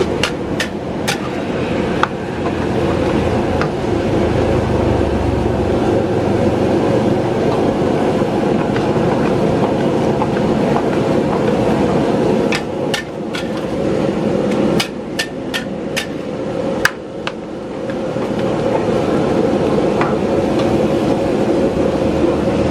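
Metal spatula clanking against a wok over a steady rushing burner as noodles are stir-fried. The clanks come in a few quick strikes near the start and again in a run past the middle.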